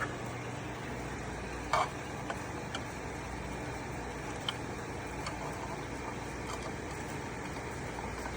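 Steady low hum and hiss of running aquarium equipment, with a few sharp clicks. The loudest click comes a little under two seconds in, and fainter ones follow over the next few seconds.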